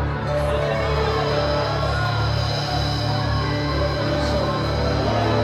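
Live worship band playing an instrumental passage, electric guitar over steady, sustained low bass notes.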